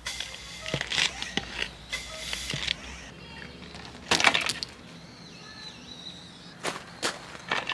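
A Feelgood hand pump worked in a few quick strokes, topping up the air beams of an inflatable tent. About four seconds in comes a loud short rasp, and a few lighter rustles follow near the end as the tent fabric is handled.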